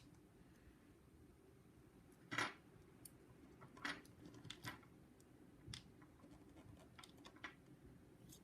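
A few sparse, small metallic clicks and clinks as an ABUS 72/40 padlock is taken apart by hand to get at its core, the loudest about two seconds in; faint between them.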